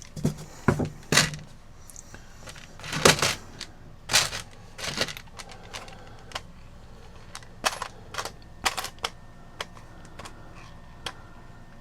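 Irregular clicks, taps and knocks of small metal parts being handled: screws and a screwdriver working against an antique cuckoo clock's movement and wooden case. The knocks come thickest in the first five seconds, then thin out to scattered light clicks.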